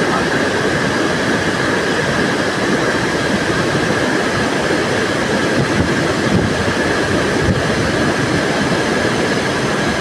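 Bharachukki waterfall in heavy flow, a loud, steady rush of water pouring over rocks.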